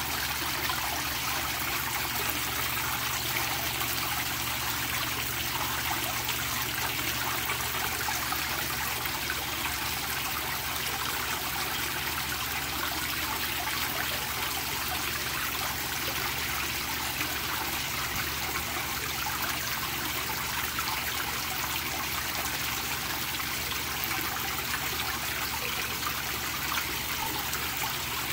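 Pond fountain splashing steadily onto the surface of a koi pond.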